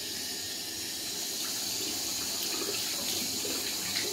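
Water running steadily from a tap into a sink, an even hiss, with a light knock near the end.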